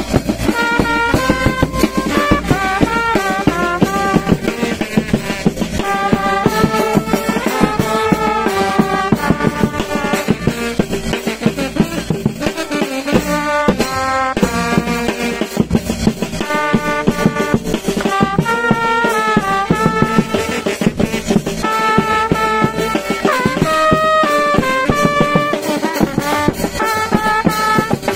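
Vietnamese funeral brass band (kèn tây) playing a slow melody, trumpets and trombone with drum beats underneath.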